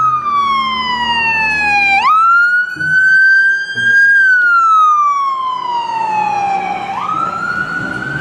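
Ambulance siren on a slow wail. The pitch holds high, slides down over two to three seconds, then snaps quickly back up, twice. A faint traffic rumble runs underneath.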